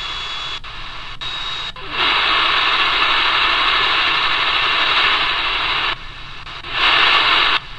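QFX R-35 portable radio's speaker hissing with shortwave static while being tuned. There are a few brief crackles and a faint high whistle at first. The hiss jumps louder about two seconds in, drops back near the six-second mark, then swells again briefly before the end.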